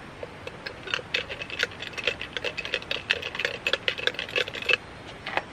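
Ice cubes rattling in a lidded plastic tumbler of iced coffee as it is shaken. A quick run of clicks starts about a second in and stops shortly before the end, with one last knock after it.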